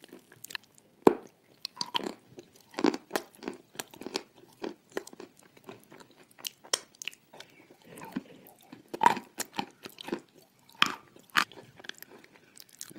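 Close-miked eating: chewing and smacking of soft food coated in thick cream, heard as irregular wet mouth clicks, with a few louder smacks about a second in and near the end.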